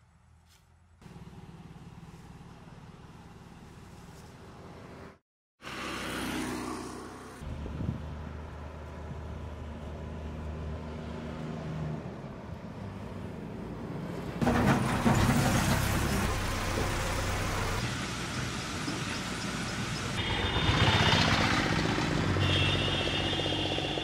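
Heavy dump trucks driving past on a road: a low engine drone with swells as each one passes, the loudest about fifteen seconds in. The sound cuts out for a moment about five seconds in, and a high squealing tone comes in near the end.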